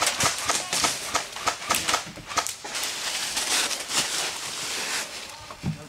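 Hurried footsteps crunching through dry fallen leaves, a quick run of about four or five steps a second that turns into a steadier shuffling rustle about halfway through.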